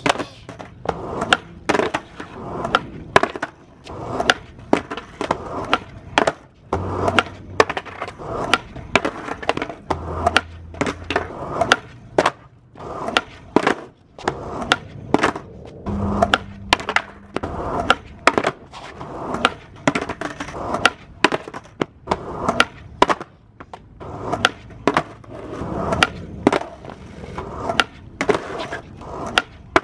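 Skateboard trick attempted over and over on asphalt: many sharp tail pops and the board clacking down onto the pavement, with wheels rolling in between. These are attempts at a late shove-it that keeps failing to land.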